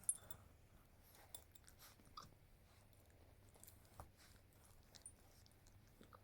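A tiny six-week-old puppy hiccupping: faint, sharp little hics about once a second, about six in all, the first the loudest.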